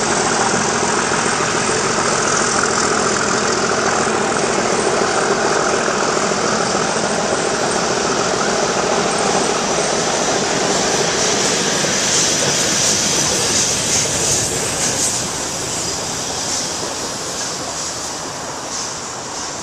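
Steam-and-diesel-hauled passenger train, an LNER A4 Pacific steam locomotive with a Class 37 diesel, running past on the main line: a steady rumble of engine and wheels on rail that fades over the last several seconds as the train draws away.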